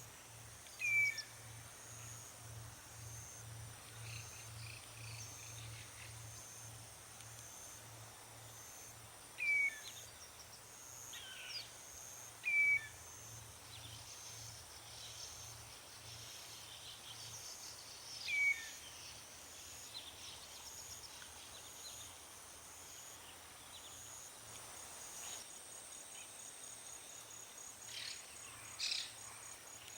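Common redshank giving short, falling whistled calls several times, over steady chirping of crickets and a faint low hum.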